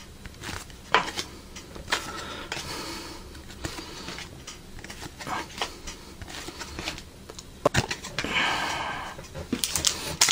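Trading cards being handled and flipped through: soft sliding of card stock and scattered light clicks, with a brief rustle about eight seconds in.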